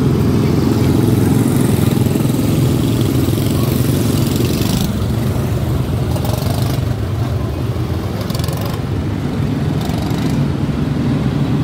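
A pack of quarter midget race cars with single-cylinder Briggs & Stratton Animal engines running together on the track, a steady drone of many small engines.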